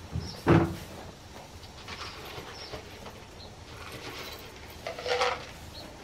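A loud knock about half a second in, then a shorter clatter about five seconds in.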